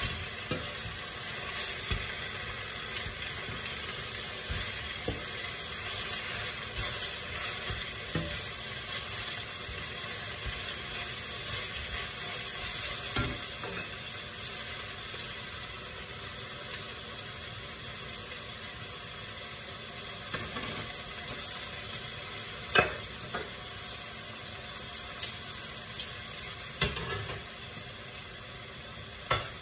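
Fresh spinach sizzling as it wilts in a hot skillet, stirred with a wooden spoon. A steady hiss runs throughout, and a few sharp knocks come in the second half.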